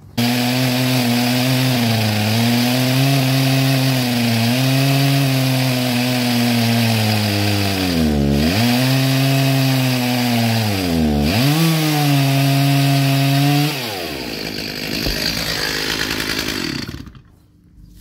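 Stihl MS361 chainsaw with a 28-inch bar running at full throttle as it cuts into a large crotch log; its pitch dips and recovers twice as the chain is pressed into the wood. About fourteen seconds in the throttle is released and the saw drops to a lower, quieter sound, falling silent shortly before the end.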